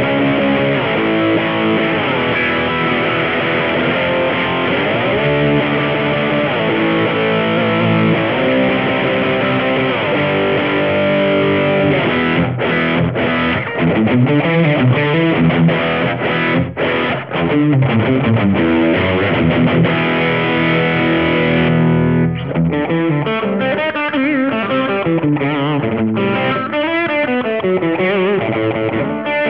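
Electric guitar played through the ultra gain channel of a tube amp, boosted by a Fender Engager Boost pedal, playing heavily distorted riffs and lead runs. About two-thirds of the way in, the boost is switched off and the tone loses its top end.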